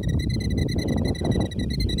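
Killdeer giving a fast, steady alarm trill of rapid high notes, about ten a second, from a bird agitated by someone near its nest. Wind rumbles on the microphone underneath.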